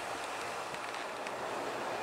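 Diesel railcar standing at the platform with its engine idling, a steady hum mixed with wind noise on the microphone.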